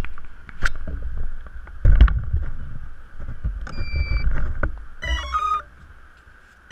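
Knocks and rumble from handling a quadcopter's GoPro camera and setting it down on sand, loudest about two seconds in. About four seconds in comes a steady electronic beep, then a quick run of stepped electronic tones, the quadcopter's start-up tones as it powers up.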